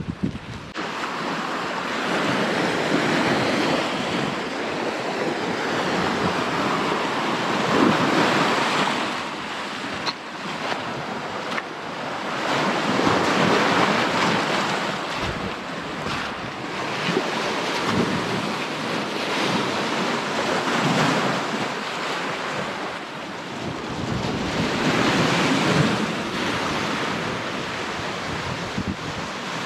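Waves of the Gulf of Finland breaking and washing on the shore, swelling and falling back every few seconds, with wind gusting on the microphone.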